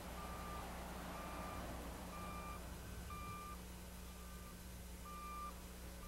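Faint vehicle reversing alarm beeping steadily, one short tone of the same pitch about once a second.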